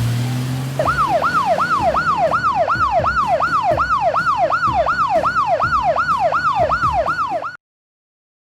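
Emergency vehicle siren in a fast yelp, its pitch sweeping up and down about twice a second, cutting off suddenly near the end. It is preceded by a short low hum that rises in pitch.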